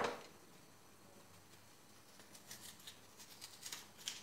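A knife cutting and scraping small pieces out of the inside of a crisp black radish: a run of faint, short, crisp strokes starting about halfway through, after a louder clatter dies away at the very start.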